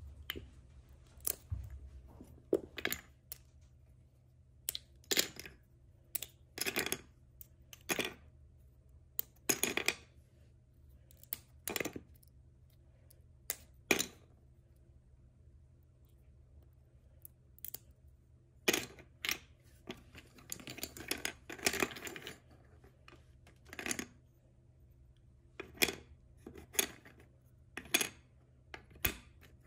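Wooden toy pieces being handled and set down: irregular light clicks and knocks, a few seconds apart, with a denser run of clatter about twenty seconds in.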